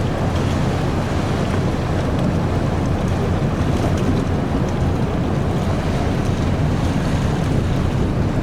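Steady low rumble of a large ship moving slowly through a canal lock, its engines and propeller churning the water, with wind noise on the microphone.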